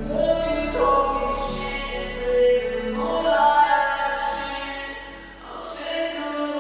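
Background music: long held sung notes over a low steady bass, dipping briefly in loudness a little after five seconds in. No drone motor sound stands out.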